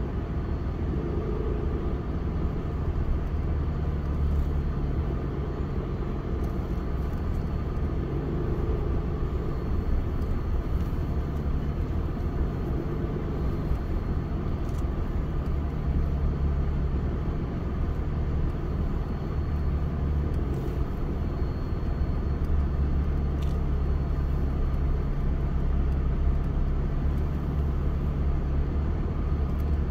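Vehicle engine and tyre noise heard from inside the cab while driving slowly on a dirt track: a steady low hum that rises and falls a little with the engine speed.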